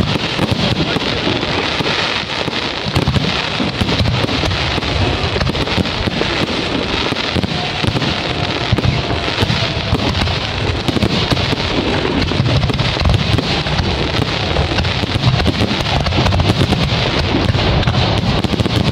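Fireworks display: a dense, unbroken barrage of bangs and crackling shell bursts, many overlapping with no pause.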